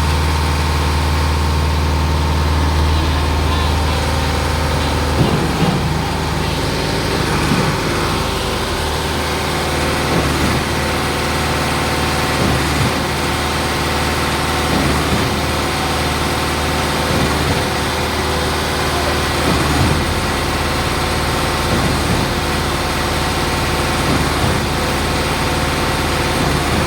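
Concrete pump running with its engine held at a steady speed. From about five seconds in, a regular stroke comes about every two and a half seconds as the pump pushes concrete through the line.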